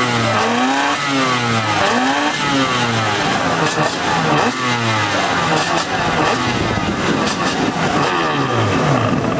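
Racing personal watercraft (jet ski) engines revving, their pitch rising and falling over and over as several craft run and turn together.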